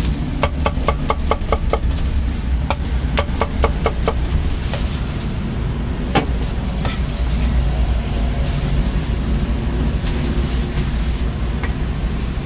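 A meat cleaver chopping roast meat on a wooden chopping board: a fast, even run of about six strokes a second for the first two seconds, then slower scattered knocks, with one louder knock about six seconds in. Steady low street-traffic rumble underneath.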